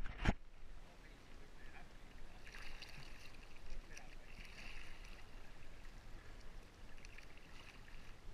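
Kayak paddling: a sharp knock right at the start, then faint swishes of water from paddle strokes every couple of seconds.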